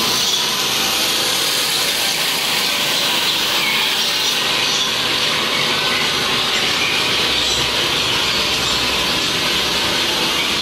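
Steady, loud hissing rush inside a dark ride's mock subway car, even throughout with no distinct knocks or voices.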